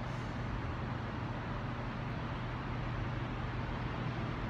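Steady low hum under a constant hiss of background noise, with no distinct events.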